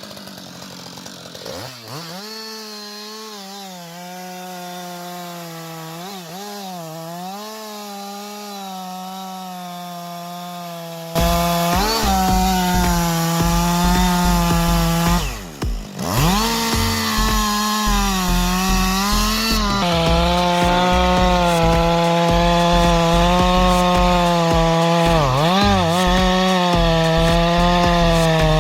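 Chainsaw running under load as it cuts into wood, its engine note dipping and recovering as the chain bogs in the cut. It gets suddenly much louder about eleven seconds in, and briefly drops away and picks up again a few seconds later.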